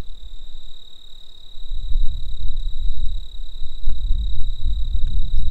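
Insects trilling steadily at one high pitch, over a low rumbling noise that grows louder about two seconds in.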